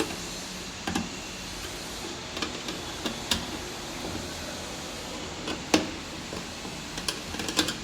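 Scattered light clicks and knocks from hand work fitting fixtures, over a steady background hiss. The sharpest click comes a little before six seconds in.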